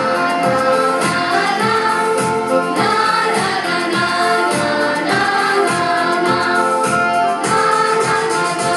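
A song with voices singing together over a steady beat.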